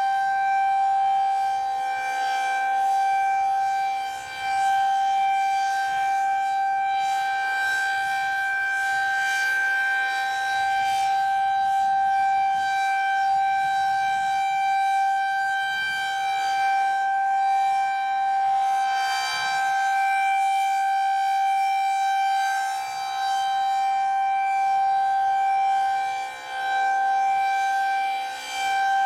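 Federal Signal 2001-SRN electromechanical outdoor warning siren sounding a loud steady tone at full pitch during its monthly test, with a few brief dips in volume.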